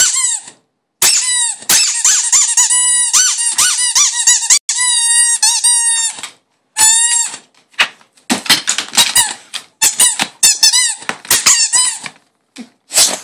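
Rubber squeaky toy ball being squeezed again and again, giving high squeals. Some are long and wavering, others short and quick in succession, with brief pauses between runs.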